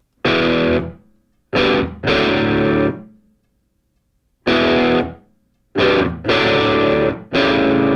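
Music: distorted electric guitar chords, struck in short stabs of half a second to a second with abrupt silent gaps between them.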